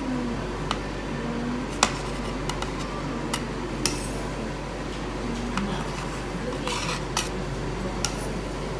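Scattered light clinks and taps against an aluminium sheet pan as strips of dough are set down on it, about seven sharp ticks, the loudest a little under two seconds in and about four seconds in.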